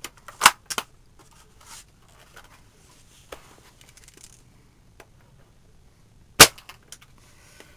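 Well L96 spring-powered bolt-action airsoft sniper rifle: sharp clicks as the bolt is worked near the start, quiet handling, then one sharp shot a little over six seconds in.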